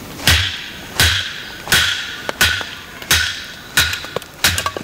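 Wooden baton striking the spine of an ESEE-5 knife seven times, about one blow every 0.7 s, each knock with a short ring. The blows drive the blade down through a split of oak firewood in batoning.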